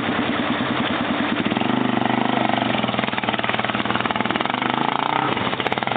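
An ATV engine running steadily as it is ridden, its pitch wavering a little.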